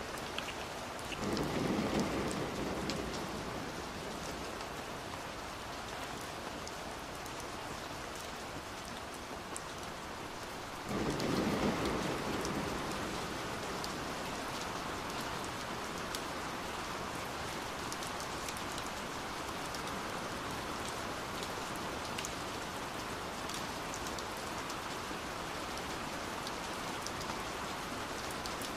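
Steady heavy rain pattering on a window pane, with fine drop ticks throughout. Two short rumbles of thunder break in, one about a second in and another about eleven seconds in, each swelling suddenly and fading over a couple of seconds.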